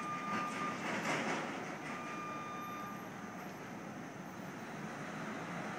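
Construction-site machinery running with a steady rumble and hum, while a warning beep sounds in two long, level tones in the first half.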